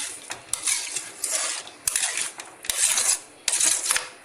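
A spoon scraping around the kadai as watery chicken curry is stirred, in repeated rasping strokes a little more than one a second.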